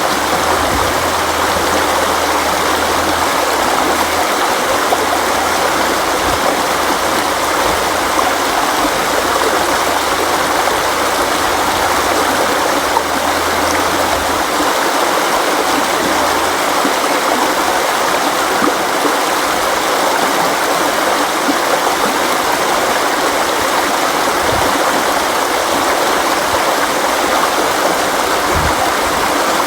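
River water flowing steadily, an even, continuous rush of running water.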